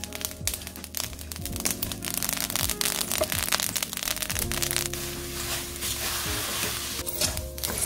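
Sesame seeds rustling and scraping as a wooden spatula stirs them around a stainless steel pan while they toast, over background music.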